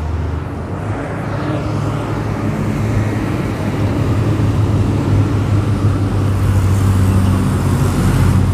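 A motor vehicle's engine running, a steady low hum that grows gradually louder.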